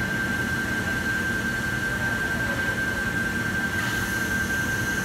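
Steady machine noise of an industrial robot cell on a factory floor, with a constant high-pitched tone running through it. A brighter hiss comes in about four seconds in.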